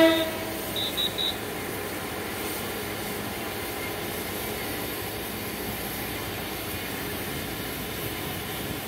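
The end of a train horn cutting off right at the start, three short high beeps about a second in, then the steady distant running sound of diesel locomotive R152 as it shunts across to the main line.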